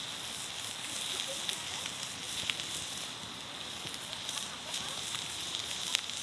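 Wood fire crackling, an even hiss with scattered sharp pops.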